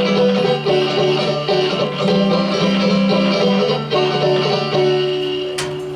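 Live acoustic country-folk music: plucked string instruments playing a slow instrumental passage between sung lines, with sustained chords, growing quieter near the end.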